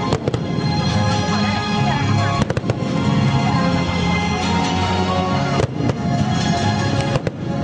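Fireworks going off: several sharp bangs and crackles spread through, over loud music with held notes.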